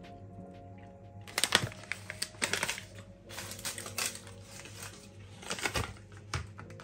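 Plastic sweet packet and thin plastic carrier bag handled by hand, crinkling and rustling in quick, irregular crackles starting about a second in.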